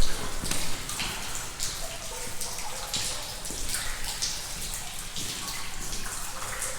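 Water dripping heavily from the roof of a canal tunnel: many irregular drips and splashes.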